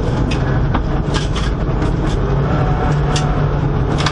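Inside the cabin of a Subaru Impreza WRX STI R4 rally car at speed: its turbocharged flat-four engine runs with a steady drone over tyre and road noise. Several sharp clicks and knocks break through the drone.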